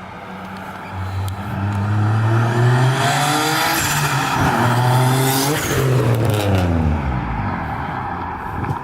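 Turbocharged Nissan 350Z's 3.5-litre V6 revving up under boost with a rising pitch. About five and a half seconds in comes a loud hiss from the HKS blow-off valve as the throttle closes, and the revs then fall away.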